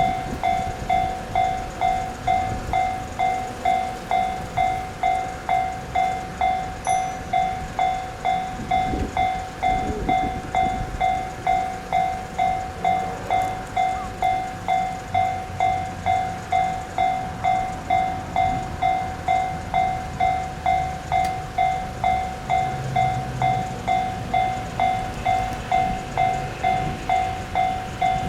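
Japanese railway level-crossing warning bell ringing steadily, a pitched electronic 'kan-kan' struck at an even pace of about one and a half strikes a second, signalling that a train is approaching. A low rumble runs underneath.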